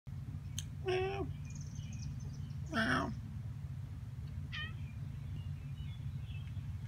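Domestic cat meowing twice, about a second in and again about three seconds in, the second call dipping lower in pitch, with a short faint higher call a little later. A steady low rumble runs underneath.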